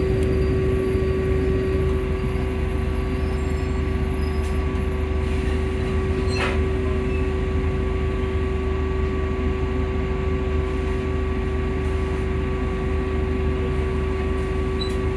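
Volvo B5L hybrid bus producing an odd steady whine at one constant pitch over a low drivetrain rumble, with a brief knock about six seconds in.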